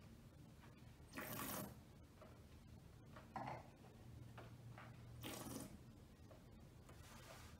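A wine taster's breathing while holding a mouthful of red wine: two short, noisy breaths about four seconds apart, with a small click between them.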